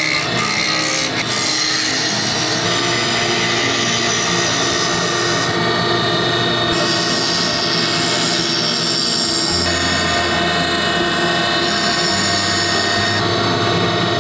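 Wood lathe spinning a wooden pen blank while a gouge cuts it, a steady scraping hiss of the tool on the wood.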